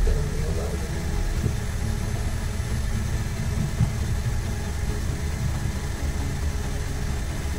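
Steady low rumble, as of a small motor running at the bench, with a faint steady hum and one light tap a little past the middle.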